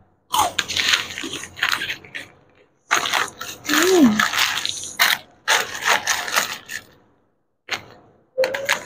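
Plastic snack wrapper crinkling and crackling as it is handled, in four bursts with short pauses between, and a brief hum from her voice about four seconds in.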